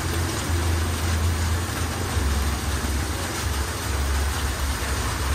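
Heavy downpour: a steady, loud hiss of rain on the street and the metal awning overhead, with a strong low rumble underneath that swells and fades about once a second.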